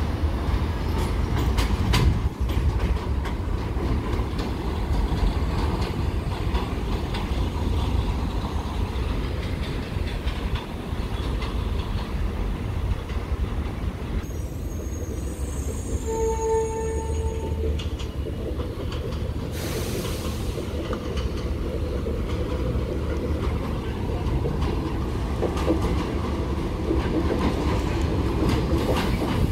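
New York City subway trains running through an open-air station: a steady rumble with wheels clacking over the rail joints. About halfway through, a single held tone sounds for about a second and a half, and a short hiss follows a few seconds later.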